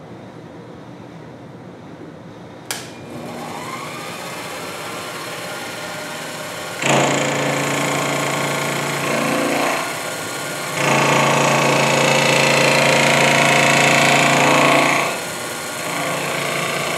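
Sherline mini milling machine switched on with a click, its motor spinning up with a rising whine, then the fly cutter taking a facing cut across a metal block: a loud, steady machining sound in two passes with a short break between them, about 7 and 11 seconds in.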